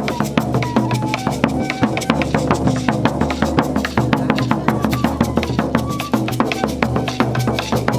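Live Brazilian folk percussion ensemble playing a fast, steady beat: an alfaia bass drum beaten with sticks, gourd shakers and a tube shaker, with a pífano (cane fife) playing short held melody notes over it. The rhythm is a blend that the players describe as coco, cacuriá and tambor de crioula together.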